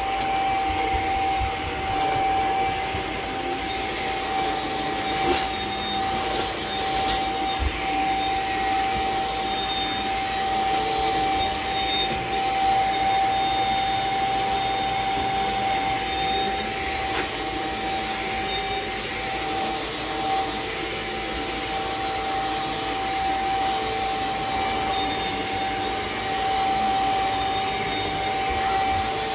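Cordless stick vacuum running steadily as its powered floorhead is pushed over carpet and a rug, with a constant high motor whine over the rush of air. A couple of brief clicks come about five and seven seconds in.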